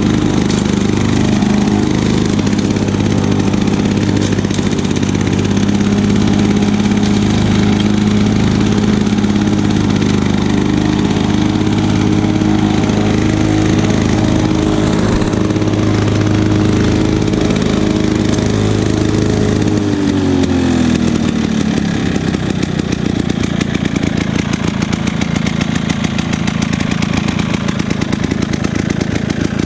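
Walk-behind lawn mower engine running steadily at speed, then about two-thirds of the way through its pitch falls as it slows to a lower speed, where its individual firing pulses can be heard.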